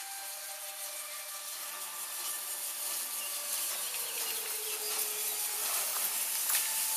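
Steam tank locomotive approaching slowly, a steady hiss of steam growing louder as it nears. Faint thin squealing tones ride over it, one sliding down in pitch about halfway through.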